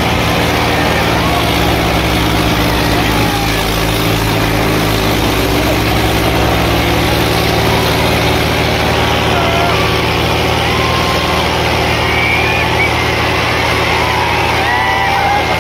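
Sonalika and Swaraj 855 diesel tractors running hard under full load as they pull against each other in a tractor tug of war, a steady heavy engine drone with no let-up. Crowd voices are heard faintly over it.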